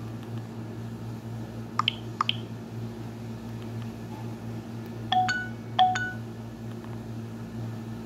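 Nokia 130 keypad tones: two pairs of short beeps as the phone's keys are pressed, a few seconds apart, over a steady low hum.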